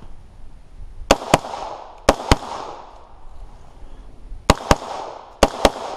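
AR-15 rifle fired in four quick pairs of shots, the two shots of each pair about a quarter second apart, each shot followed by a short echo.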